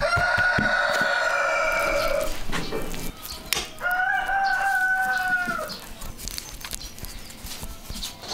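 A rooster crowing twice, each crow a long held call of about two seconds, with a pause of a second and a half between them.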